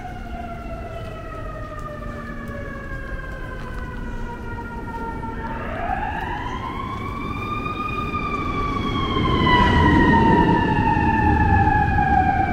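An emergency vehicle's siren wailing: the pitch sinks slowly, sweeps sharply up about six seconds in, then slowly falls again. A low rumble grows louder about ten seconds in.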